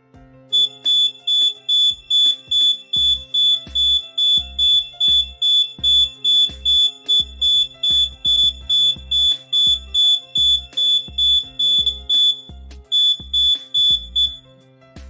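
Carbon monoxide detector alarm going off when it senses carbon monoxide gas: a loud, rapid, high-pitched beeping that pauses briefly near the end, then resumes and stops. Background music plays underneath.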